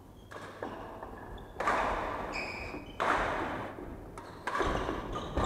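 Badminton rally: sharp racket hits on a shuttlecock about a second and a half apart, each ringing on in the hall, with short shoe squeaks on the wooden court floor between them.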